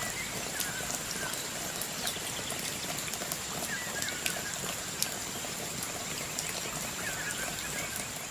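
Outdoor ambience: a steady hiss with scattered light ticks and a thin, steady high-pitched tone, with a short bird chirp three times.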